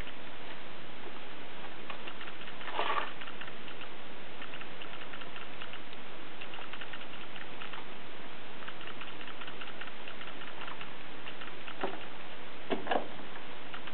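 Steady hiss with many faint, scattered ticks and a few louder clicks, one about three seconds in and a cluster near the end.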